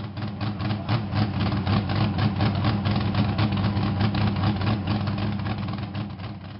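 An engine idling with a rapid, even pulse, its sound mostly low. It fades in at the start and fades out near the end.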